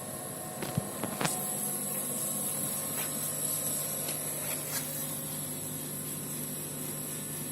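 Laser cutting and engraving machine running: a steady hiss and hum from its fans and air, with a few sharp clicks in the first seconds and a low steady hum that sets in about a second in and holds.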